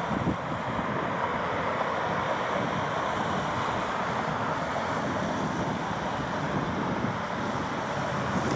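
Steady roar of jet airliner engines, with wind buffeting the microphone.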